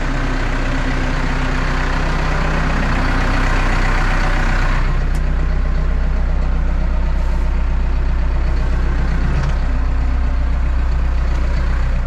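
Farm tractor's diesel engine running steadily at idle. About five seconds in the sound turns duller and deeper, heard from inside the closed cab.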